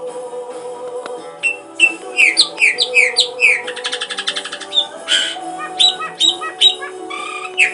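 A bird chirping over background music with steady held notes: a run of about four quick falling whistles, then a fast buzzy trill, then scattered short chirps.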